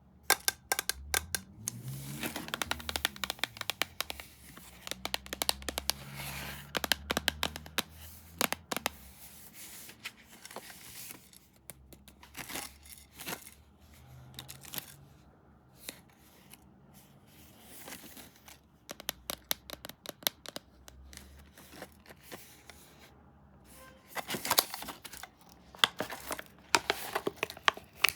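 Pringles packaging being handled and torn open: irregular crinkling and tearing with many sharp crackles, coming in busy bursts with short quieter gaps.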